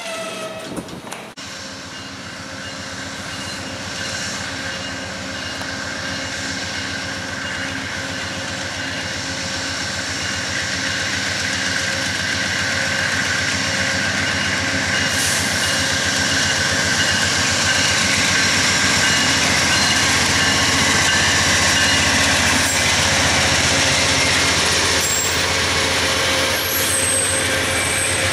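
Amtrak passenger train led by a GE Genesis diesel locomotive approaching and passing: engine and wheel noise with several steady tones in it grows gradually louder to a peak about two-thirds through, then the coaches roll by. In the first second, the tail of a freight train is rolling past.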